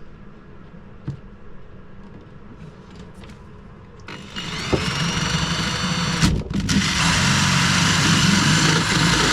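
A few faint clicks, then a power drill starts about four seconds in, its motor whining up in pitch, stops for a moment, and runs on steadily, drilling the mounting hole for an ignition switch through a boat's interior panel.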